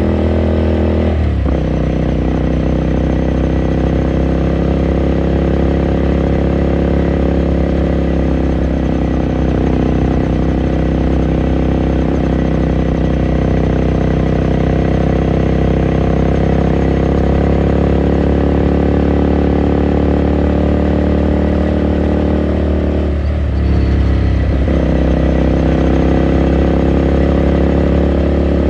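Ducati Scrambler Sixty2's air-cooled 399 cc L-twin running steadily under way, heard onboard. Its note breaks and changes pitch briefly about a second in and again near the end.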